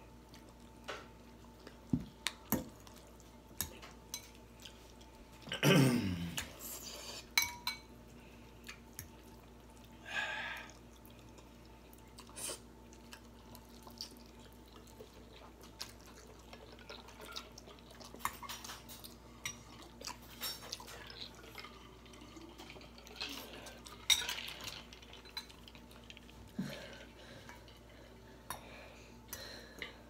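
Table eating sounds: forks clinking on ceramic bowls and ice-filled glass jars, in scattered sharp clicks. About six seconds in comes one loud, low burp falling in pitch.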